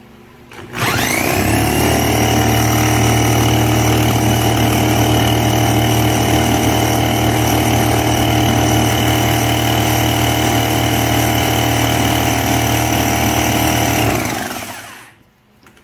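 Electric drill spinning a scooter's magneto flywheel at a steady speed, a continuous whine and hum that starts about a second in and winds down near the end. It drives the flywheel to test the output of the ignition pickup coil, newly set close to the flywheel.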